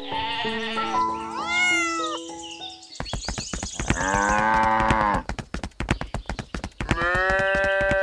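Livestock calls dubbed over a toy-farm scene: a lower, wavering call about four seconds in and a higher, steady call near the end, over a fast run of clicks. Light background music plays in the first few seconds.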